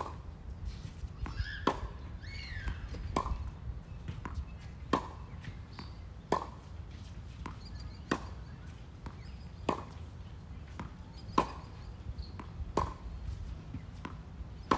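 Tennis rally: rackets strike the ball in a steady rhythm about every one and a half seconds, with the ball's bounces on the hard court in between.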